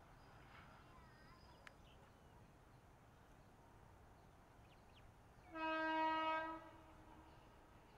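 A train horn sounds once, about five and a half seconds in: a single steady tone lasting a little over a second that then fades. Faint bird chirps come before it.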